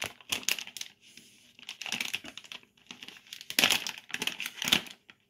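A small plastic packaging bag crinkling and rustling as it is handled and torn open to get the tweezers out, in three bursts with short quiet gaps.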